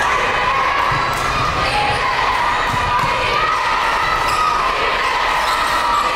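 A basketball being dribbled on the court, with repeated bounces over the steady noise of an arena crowd.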